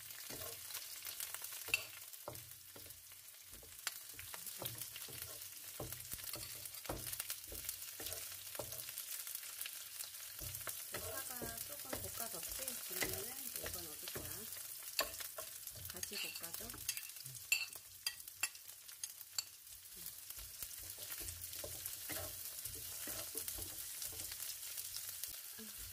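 Scallions sizzling in hot oil in a nonstick wok while a wooden spatula stirs and scrapes them, with a steady frying hiss and occasional sharp taps of the utensils on the pan.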